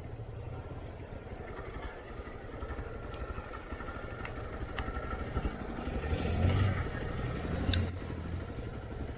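Motorcycle engine running at low revs, swelling louder about six and a half seconds in and again near eight seconds, with a few faint clicks.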